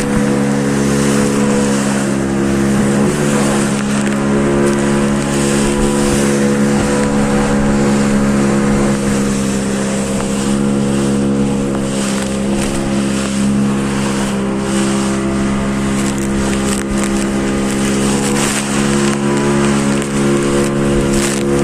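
Engine running steadily at a constant speed, with wind buffeting the microphone.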